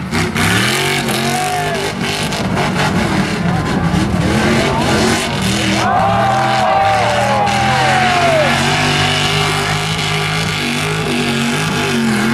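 Lifted 4x4 pickup truck's engine revving hard as it is driven around a dirt pit, its pitch climbing and dropping again and again. A few higher, arching glides join it about six seconds in.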